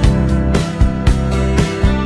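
Instrumental background music with guitar and a steady beat.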